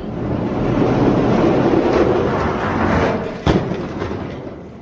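Die-cast Hot Wheels monster trucks rolling down orange plastic track: a steady rolling rattle that swells and then fades, with one sharp knock about three and a half seconds in.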